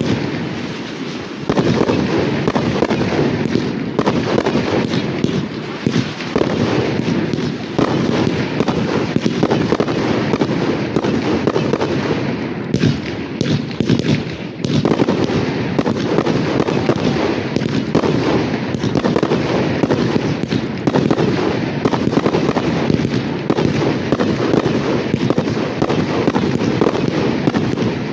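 Fireworks display going off in a dense, continuous barrage: many bangs and crackling bursts a second, overlapping without a pause.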